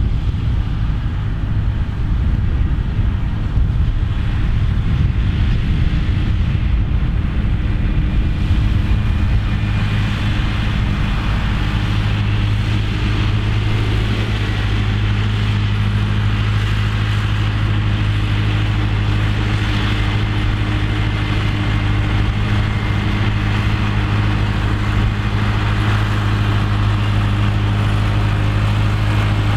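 Massey Ferguson tractor's diesel engine running with a steady low hum that becomes more even about ten seconds in.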